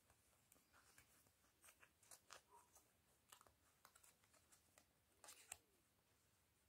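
Near silence with faint, scattered soft clicks and scratches of a crochet hook working velvet yarn, a small cluster of louder ticks about five seconds in.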